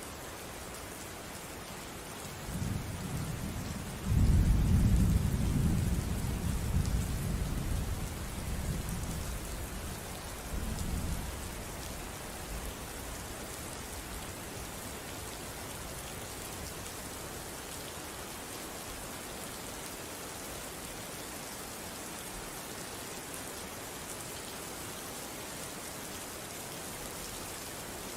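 Steady rain falling, with a low rumble of thunder that rolls in a few seconds in, is loudest for several seconds and dies away partway through, leaving the rain alone.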